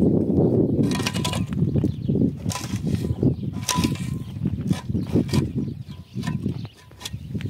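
A shovel digging into stony dirt, the blade scraping and striking soil and stones in several sharp strokes, over a steady low rumble.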